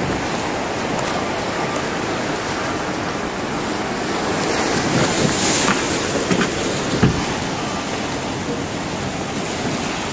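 Tsunami floodwater surging and churning through a harbour of fishing boats: a loud, steady rush of water, with a few dull thumps about five to seven seconds in.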